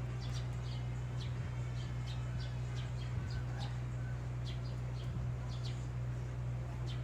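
Small birds chirping: short high chirps, a few a second at irregular spacing, over a steady low hum.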